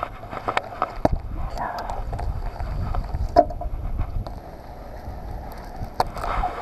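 Wind buffeting the microphone, with scattered clicks and knocks from handling a baitcasting rod and reel.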